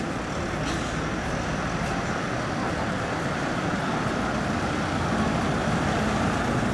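Vintage London Transport single-deck bus's diesel engine running as it approaches slowly, over steady street traffic noise, growing a little louder toward the end.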